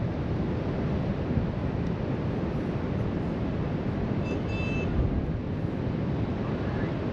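Steady wind buffeting the microphone over the continuous wash of ocean surf breaking on the shoreline. About four seconds in, a brief high chirp sounds twice in quick succession.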